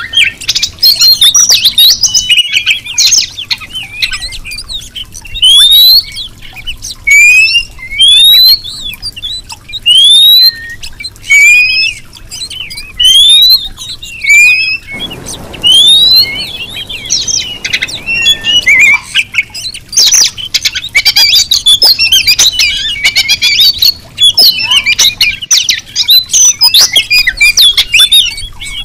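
Female oriental magpie-robin calling, a female's call to males: a run of short rising whistles about one a second, then a fast, dense chattering twitter. A brief rushing noise sounds in the middle.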